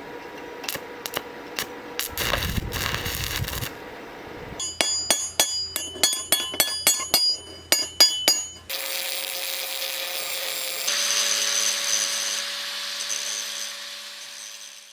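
Metalworking on steel parts. First come scattered clicks and a short scraping rasp, then from about four seconds a quick run of sharp metal strikes that ring on. About halfway through this gives way to a steady hissing tool noise with a held whine.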